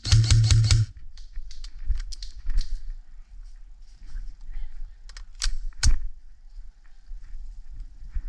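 A short burst of rapid fire from an airsoft gun, under a second long, cutting off abruptly. Scattered rustling and clicks follow, with two sharp snaps about five and a half and six seconds in.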